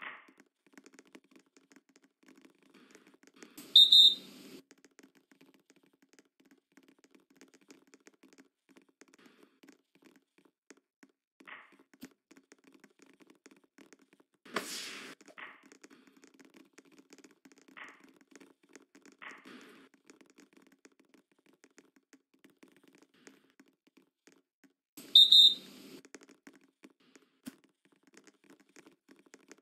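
Referee's pea whistle blown twice, a shrill blast about four seconds in and another about twenty-five seconds in, each about a second long and the loudest sounds. A single sharp smack midway, with a few faint short squeaks scattered over a low, steady gym murmur.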